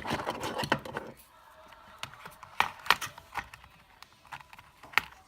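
Handling noise in the first second, then a few sharp clicks, three standing out about two and a half, three and five seconds in.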